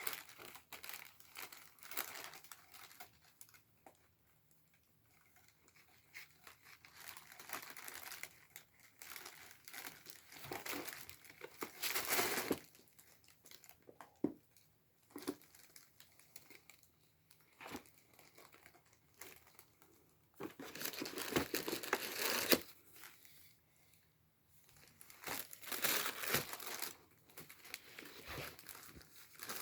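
Packaging from a cat subscription box crinkling and tearing in irregular bursts as it is unpacked, with the loudest rustles near the middle and again about two-thirds of the way through.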